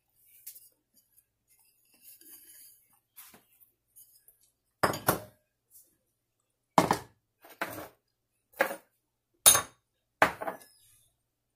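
A metal spoon scraping and then clinking against a ceramic bowl while stirring a crumbly samosa filling. Faint scraping comes first, then about six sharp clinks, roughly a second apart, in the second half.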